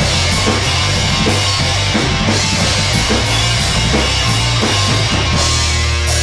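Loud rock music with a drum kit beating steadily and electric guitars; near the end the low notes settle into a held chord.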